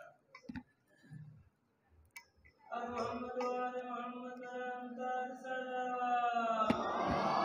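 A few light knocks and clicks as a microphone on its stand is adjusted. From about three seconds in, a single voice chants a long drawn-out call on held notes. Near the end, many voices of the gathering join in, chanting together in response.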